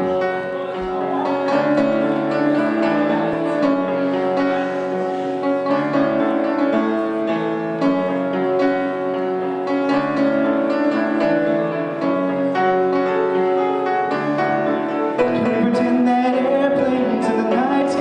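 Upright piano playing a chordal accompaniment of held notes. A male voice starts singing into a microphone over it near the end.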